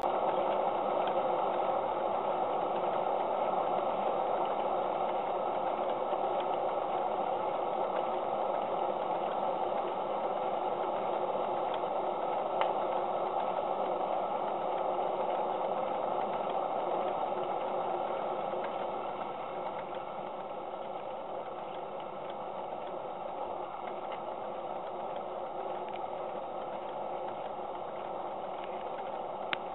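Live-steam engine of a model sternwheel paddle steamer running steadily, turning the stern paddle wheel through a 1.66:1 reduction transmission: an even mechanical clatter. It gets a little quieter about two-thirds through.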